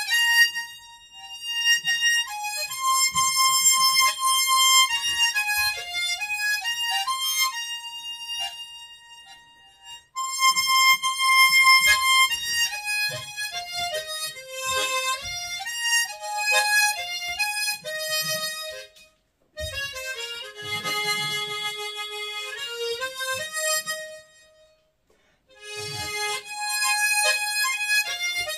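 Harmonica playing a song melody unaccompanied, one line of held notes in phrases, with three brief pauses between them.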